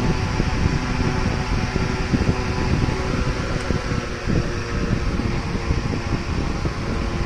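A DC room air cooler's fan running at high speed, with a steady mechanical hum and its airflow gusting against the microphone at the front louvres.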